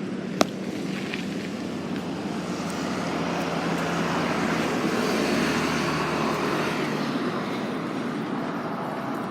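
A motor vehicle passing by: engine and road noise swell to a peak about five seconds in, then fade. A single sharp click comes just after the start.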